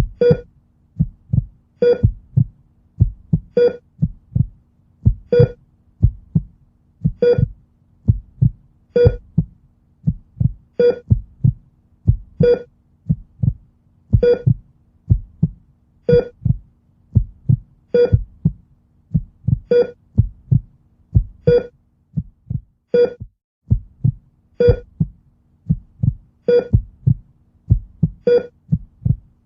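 Heartbeat sound effect: slow, steady low heartbeat thumps with a short heart-monitor-style beep about every two seconds, over a faint steady hum.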